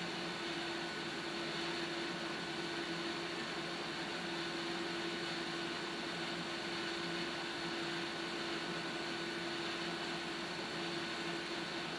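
Steady hiss of a gas stove burner heating a kettle of water, with a steady low hum underneath.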